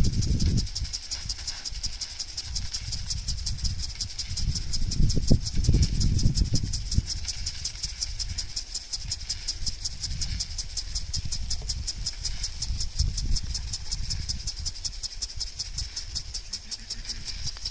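Irrigation sprinklers spraying water, a steady hiss with a rapid, even high ticking, while wind gusts rumble on the microphone, most strongly about five seconds in.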